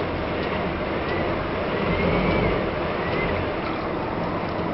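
Steady engine noise from the schooner's auxiliary engine running as she is manoeuvred alongside the dock, a low even rumble under a hiss.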